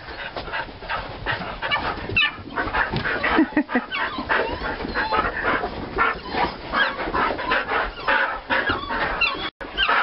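Several dogs whining and yipping excitedly, a dense run of short high-pitched cries.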